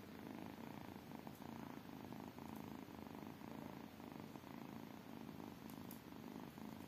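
Kitten purring steadily.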